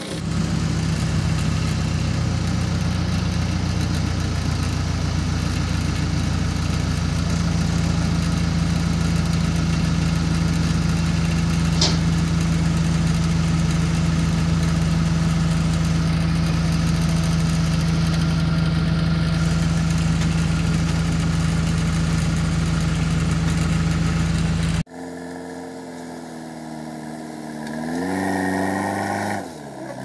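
JCB backhoe loader's diesel engine running steadily, heard from inside the cab, with one sharp click about twelve seconds in. After an abrupt cut, a quieter backhoe loader engine heard from outside rises in pitch and drops back near the end.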